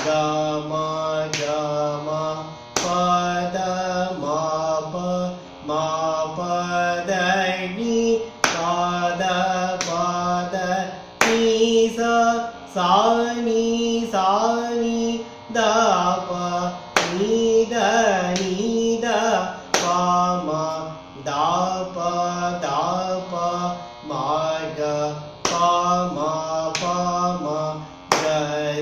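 A man singing a Carnatic alankaram exercise in chatusra-jati Rupaka tala, moving note to note in swara syllables. Sharp hand claps at regular intervals keep the tala.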